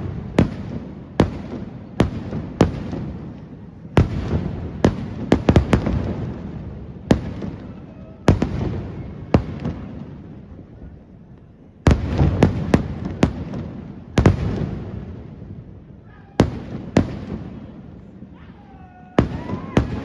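Aerial fireworks shells bursting in a display: sharp bangs about once a second, with tight rapid clusters around five and twelve seconds in, each bang trailing into a long rolling rumble.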